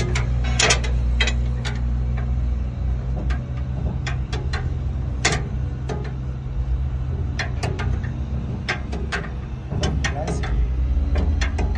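Cummins QSV91-G natural-gas V18 generator engine running at a steady speed with a deep, even hum. Many irregular sharp clicks and ticks sound over it.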